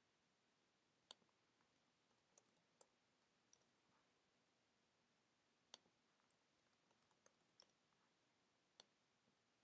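Near silence broken by a dozen or so faint, irregularly spaced clicks of a computer mouse and keyboard as waypoints are placed and named.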